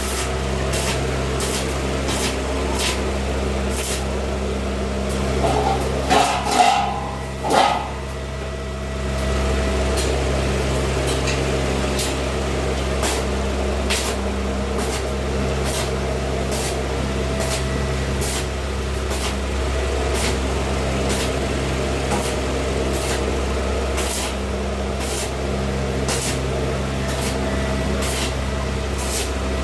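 Electric arc welding: a steady hiss and crackle from the arc over the welding machine's low hum, with irregular sharp pops. About six to eight seconds in the hiss drops out and three short, louder sounds come, then the welding carries on.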